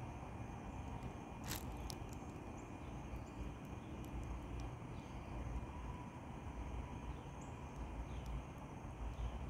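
Outdoor ambience under trees: a steady low rumble with insects trilling steadily in the background, and a sharp click about one and a half seconds in.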